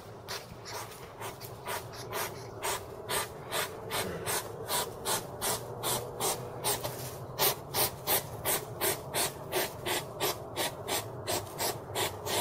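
Hedgehog snuffling and sniffing as it forages, a quick run of short huffing breaths through the nose, about two to three a second, growing louder in the second half.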